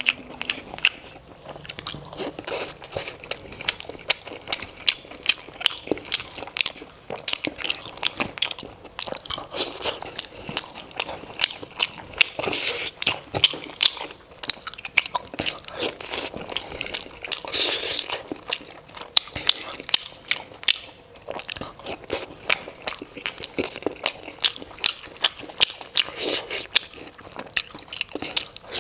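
Close-miked chewing and biting of momos (dumplings) dipped in sauce: a continuous, irregular run of wet mouth sounds with many quick, sharp clicks.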